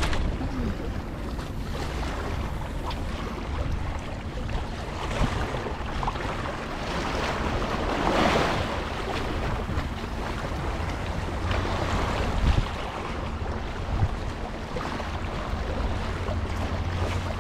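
Small sea waves washing against shoreline rocks, with wind rumbling on the microphone. One wave washes in louder about eight seconds in.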